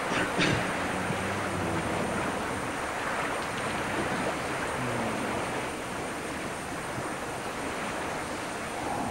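Steady rushing noise of wind and sea on open ocean, with a few faint knocks about half a second in.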